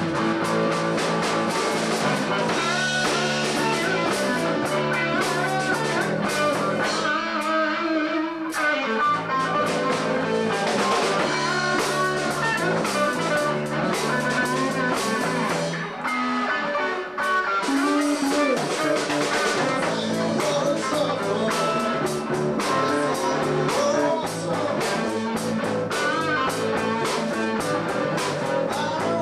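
Rock band playing live: electric guitar and bass guitar over a drum kit, keeping a steady beat.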